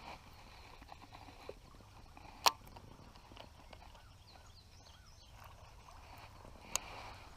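Quiet outdoor background with faint short chirps, broken by two sharp clicks, one about two and a half seconds in and a smaller one near the end.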